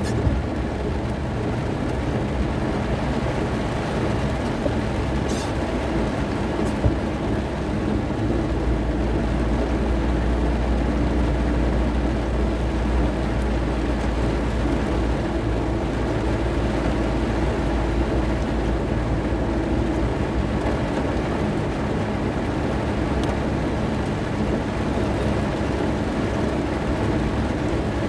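Inside a moving car in very heavy rain: a steady low rumble of the car and its tyres on a flooded road, growing heavier for a stretch mid-way, under a constant hiss of rain on the windscreen, with the wipers sweeping.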